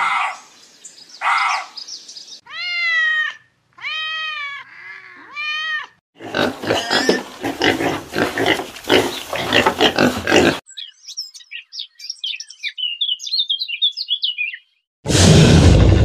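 A string of animal sounds: three high calls that rise and fall in pitch, then piglets grunting and squealing as they suckle at a sow, then high twittering chirps, and near the end a loud roar starts abruptly.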